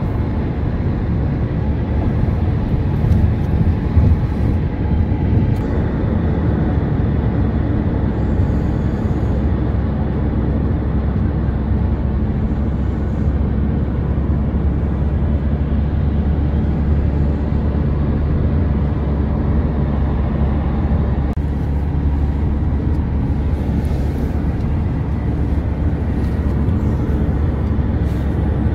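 Steady low rumble of a taxi driving at speed, heard from inside the cabin: tyre and engine noise.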